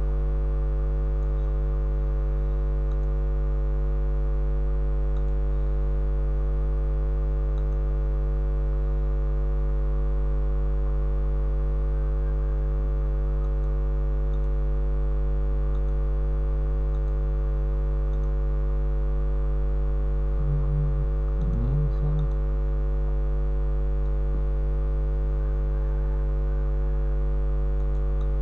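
Steady electrical mains hum: a low 50 Hz buzz with a stack of overtones above it. A brief low sound breaks into it about twenty seconds in.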